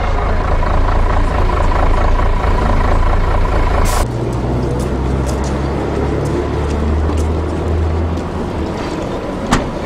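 Trolleybus driving past in street traffic, a steady rumble with a thin whine over it. About four seconds in the sound changes abruptly to a lower, steadier traffic hum with faint clicks, and one sharp click near the end.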